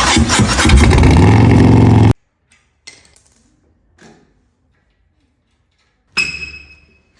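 Harley-Davidson 131ci (2147cc) Milwaukee-Eight V-twin running very loud through a Bassani 2-into-1 megaphone exhaust for about two seconds, then cut off abruptly. A few faint knocks follow, and near the end a brief ringing sound with a clear high tone that fades over about a second.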